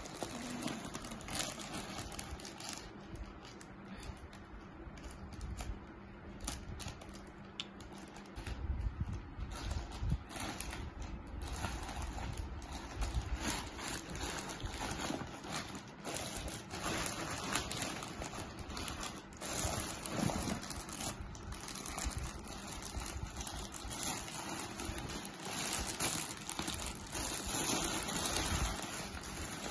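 Plastic courier mailer being torn open and handled, with irregular crinkling and rustling of the plastic and scattered crackles.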